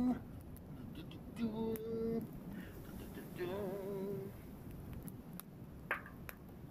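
Wood campfire crackling with scattered sharp pops, and a faint voice holding two short sung notes, the second one wavering.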